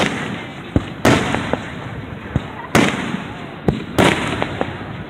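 Aerial firework shells bursting overhead: four loud booms, each echoing away, with smaller sharp pops in between.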